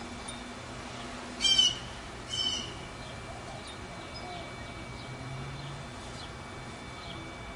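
A bird gives two short, raspy calls, about a second and a half in and again just under a second later.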